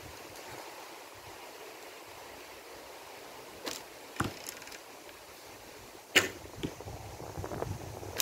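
Shooting a Kaya Black Cat 40-pound bow: a sharp snap of the bowstring on release about six seconds in, with a smaller knock about half a second later as the arrow strikes. Fainter clicks and taps come earlier as an arrow is nocked and drawn.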